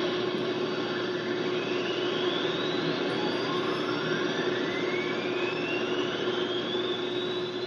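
Recorded rocket launch sound effect played back from a stereo demo tape on an RCA Victor tape cartridge deck: a steady roar with two whistling tones that rise in pitch, the first from about a second and a half in, the second from about three seconds in, over a steady low hum.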